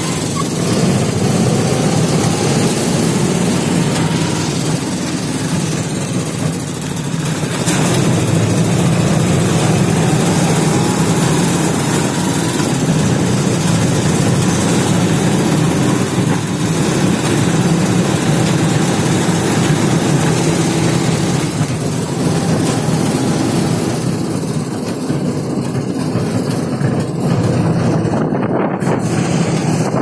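Auto-rickshaw engine running steadily under way, a loud low drone mixed with road and wind noise, heard from inside the passenger compartment.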